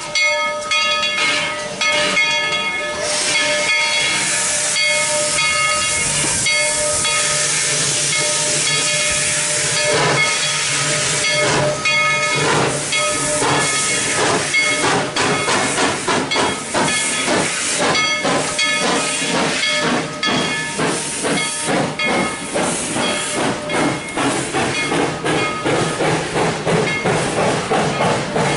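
Steam locomotive, a Baldwin 2-8-2, hissing loudly as it vents steam. About ten seconds in its exhaust starts chuffing in evenly spaced beats that quicken as the locomotive moves off with its train.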